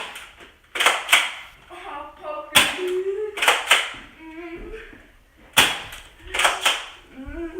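Nerf Mega dart blasters being fired at close range: a run of sharp pops and smacks, about eight in all, several in quick pairs, with short yelps in between.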